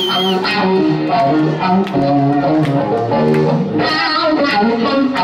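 Live blues-rock band: an electric guitar plays a run of lead notes over bass guitar and drums.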